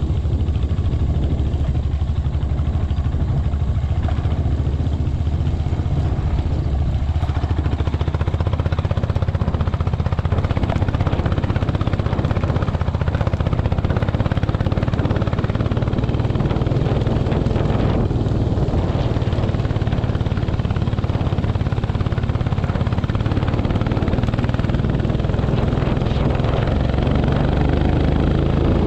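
Royal Enfield Himalayan's single-cylinder engine running steadily while the motorcycle is ridden off-road.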